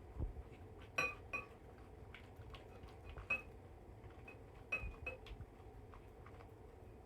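Dog eating wet dog food from a bowl, faint, with a handful of sharp clinks that ring briefly: two about a second in, one a little past three seconds, and two around five seconds, plus a few soft low knocks.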